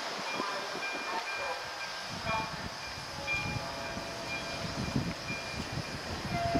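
Czech class 362 dual-system electric locomotive hauling an express passenger train, approaching slowly over the station's points with a low rumble and irregular low thumps. Thin high squeaky tones come and go above it.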